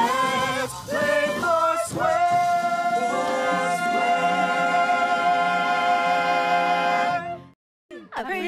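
Theme song ending: a group of voices singing with backing music, closing on one long held chord that cuts off sharply about seven seconds in. After a brief silence, voices start again near the end.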